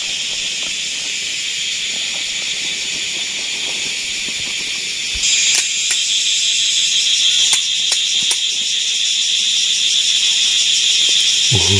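Steady, high-pitched chirring of insects in the forest. About five seconds in it gets louder as a second, higher-pitched insect joins. A few sharp clicks sound over it.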